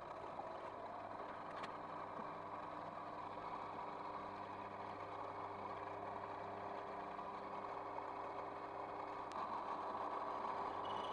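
Mini lathe running, its motor and gear train making a steady hum with several constant tones while the tool cuts the metal workpiece; it gets a little louder about nine seconds in.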